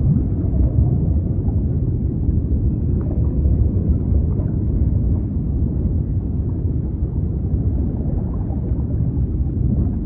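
Underwater ambience: a steady, deep rumbling wash of water with faint scattered clicks above it.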